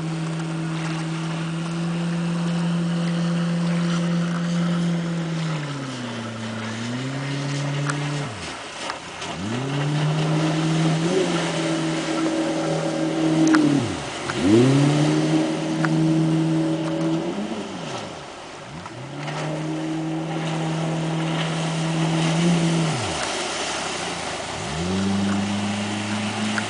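40 hp Mercury outboard motor running under way on an inflatable boat. Its steady note sags once, then several times drops sharply in pitch and climbs back within about a second, with water noise underneath.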